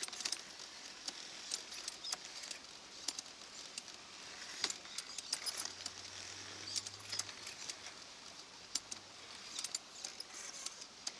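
Scale RC excavator ripping and scraping through gravel and small stones: a steady gritty hiss broken by many sharp, irregular clicks and clinks. A faint low hum joins about halfway through and fades a few seconds later.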